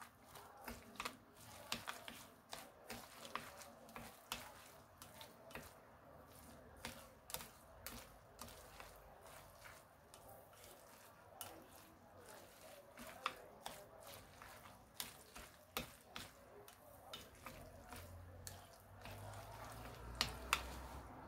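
Chopsticks mixing a wet batter of grated zucchini, carrot and egg in a glass baking dish: faint, irregular clicks and taps as the chopsticks knock against the glass.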